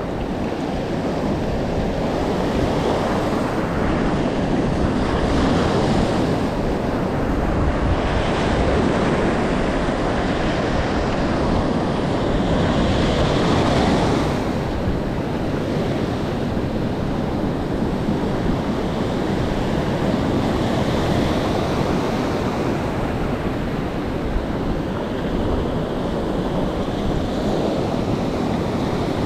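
Surf breaking and washing up a sandy beach close around the microphone, swelling and easing in slow surges, loudest about halfway through. Wind buffets the microphone underneath.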